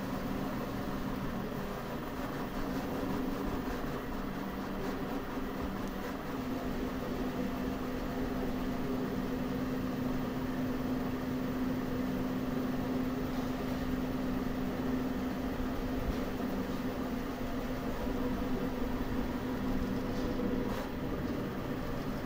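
Enclosed FDM 3D printer running a print: a steady hum of fans and stepper motors. Its low drone shifts in pitch about six seconds in and shifts back near the end.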